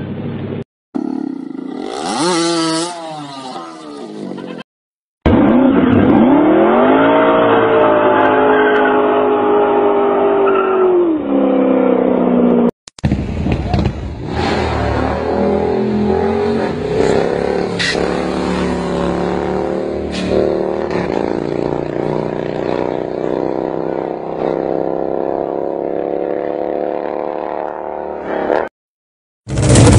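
Motorcycle engines in a run of short clips with abrupt cuts between them. First a wavering rev, then an engine note that holds steady and drops away, then a long stretch of an engine slowly rising in pitch as it accelerates.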